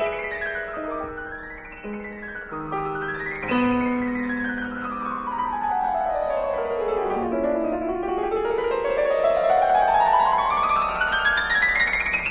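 Background piano music: short rising figures and chords, then a long run sweeping down in pitch from about four seconds in and climbing back up through the rest.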